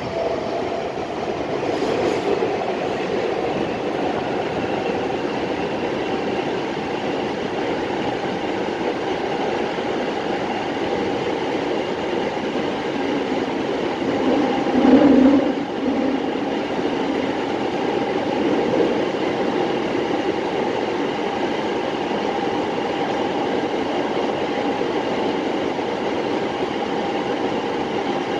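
Nagoya Municipal Subway 6000-series train running between stations in the tunnel, heard from inside the car: a steady rumble of wheels and motors with a few held tones, and a brief louder swell about halfway through.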